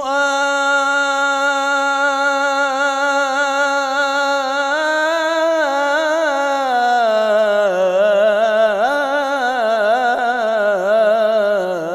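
Solo male munshid singing an Arabic devotional nasheed without words: he holds one long steady note for about five seconds, then breaks it into wavering melismatic runs that step downward in pitch.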